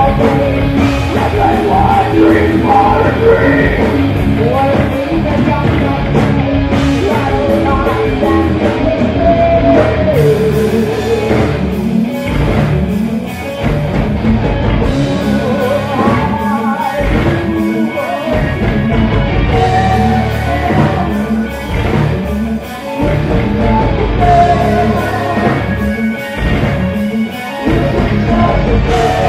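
Loud live rock band playing, with electric guitars, bass guitar and drums under sung vocals.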